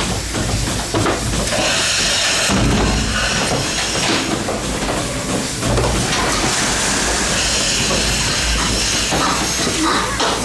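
Goat milking machinery running: a steady hiss with mechanical rattle and clatter.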